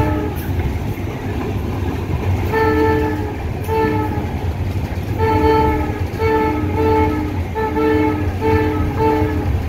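Locomotive horn sounding a string of about nine short blasts, each a chord of several notes, coming quicker and closer together in the second half. Under it runs the steady rumble of the EMD 8-645 diesel engine and the rolling train, heard from inside the cab.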